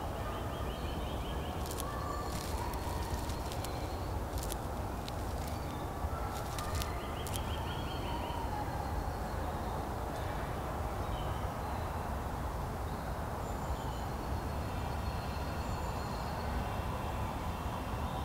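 Outdoor ambience: a steady low rumble like distant traffic, with birds chirping and trilling now and then and a run of sharp high clicks in the first several seconds.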